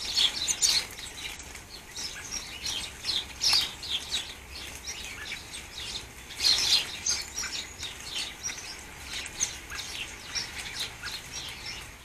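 Small garden birds chirping and tweeting rapidly throughout, with a few brief wing flutters, the loudest about half a second in and about six and a half seconds in, as blue tits fly to and from a hanging seed feeder.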